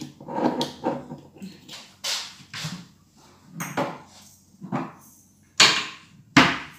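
Knocks and clunks at a kitchen cupboard as a glass bottle is put away on a shelf and pepper grinders are taken out, the two loudest knocks coming close together near the end.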